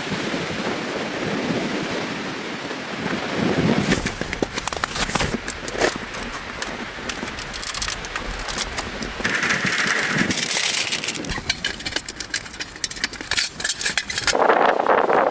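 Strong gusty wind with many sharp crackles and clicks scattered through it, thickest from about four seconds in.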